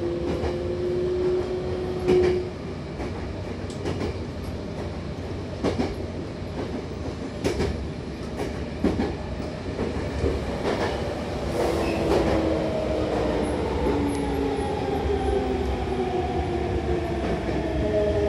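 Electric commuter train heard from inside the passenger car: a steady running rumble with irregular clicks of the wheels over rail joints. About twelve seconds in, a motor whine falls slowly in pitch as the train brakes to a stop at a station.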